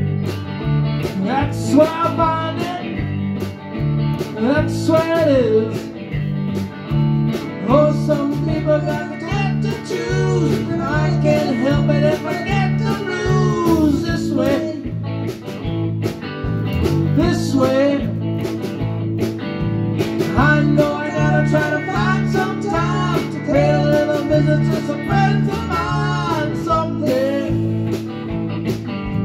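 A band playing live: a bass guitar holds a steady, repeating low line under a higher lead part of sliding, bending notes.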